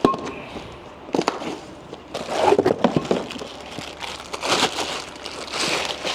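Handling noise from brake discs and their packaging: a couple of sharp knocks, then bursts of rustling and crinkling.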